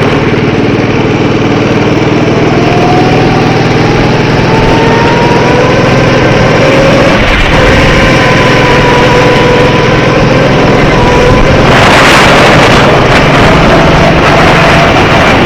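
Go-kart engine running at racing speed, its pitch climbing slowly over several seconds and dipping a little before settling. About twelve seconds in a loud hissing noise joins it for a few seconds.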